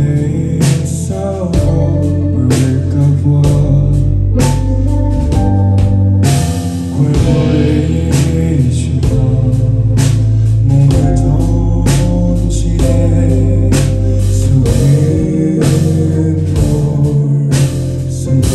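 Live band music with drums, bass and a male lead vocal.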